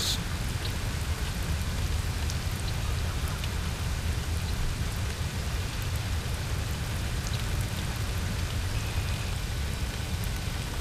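Rain and wind outdoors: a steady, even hiss with a low rumble underneath.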